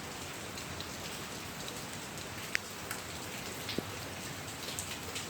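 Steady hiss of rain and hail falling on the ground, with a few sharp ticks of hailstones striking, the clearest about two and a half seconds in.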